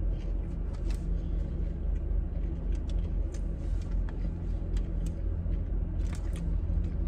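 Steady low hum of an idling car, heard inside the cabin, with faint scattered clicks from chewing a crispy fried cheese curd.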